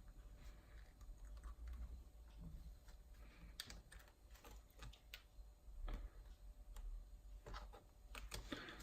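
Faint, irregular clicks and taps of hands working a needle and thread through a repair, with a low steady room rumble underneath.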